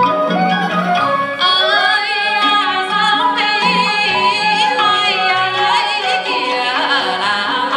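Live traditional Vietnamese music from a water puppet theatre's ensemble: a high melody with wide, wavering vibrato over a steady lower accompaniment.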